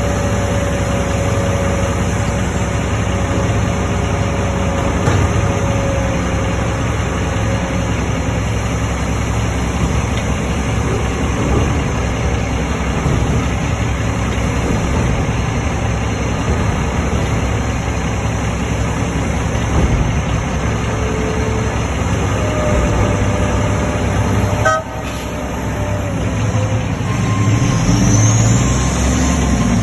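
Heavy diesel engine of a container reach stacker running steadily at close range. A faint steady tone sounds over the first several seconds, and the engine rumble grows louder near the end.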